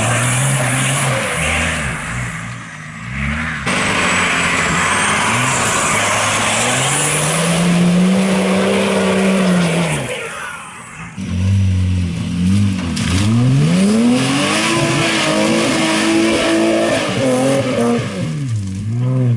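Four-wheel-drive engines revving up and down under load as they push through a mud bog, the pitch climbing and dropping several times, over a hiss of spinning tyres and flung mud. First a Nissan Safari with a TD42 turbo diesel, then a Toyota Hilux Surf with a 2JZ six.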